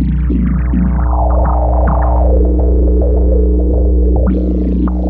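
Make Noise Eurorack modular synthesizer playing a patch: a steady low drone under a stream of short plucked-sounding synth notes, which thicken into a dense, brighter wash in the middle and thin out again near the end.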